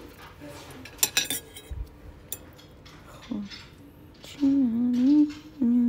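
A metal fork clinking against a ceramic plate of spaghetti a few times, the sharpest clinks about a second in. Later, the loudest sound: a person's voice humming a couple of short, wavering notes without words.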